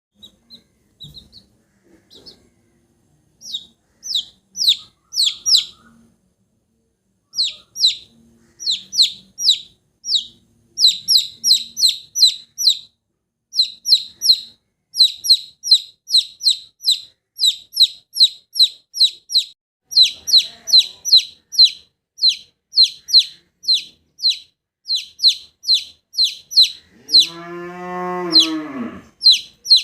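Chicks peeping: short, high, falling cheeps, scattered at first, then a steady run of about three a second. Near the end a cow gives one long, low moo that rises and falls in pitch.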